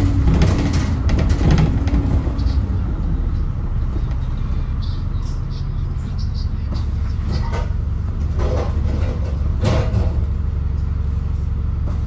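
London double-decker bus heard from inside on the upper deck: steady low engine and road rumble, with scattered knocks and rattles, the loudest near the end.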